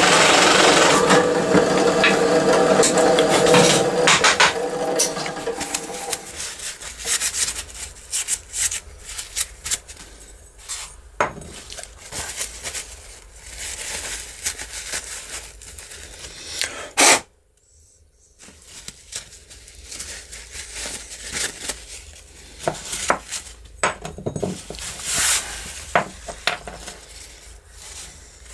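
A power tool's motor running for the first few seconds and dying away, then small metal window-handle parts clicking and clattering on a wooden bench while they are rubbed clean with a paper towel, with scattered sharp clicks.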